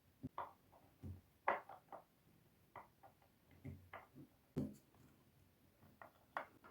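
Irregular light clicks and small knocks of wooden yarn-holder parts, screws and a mini screwdriver being handled and fitted together by hand, about a dozen scattered through.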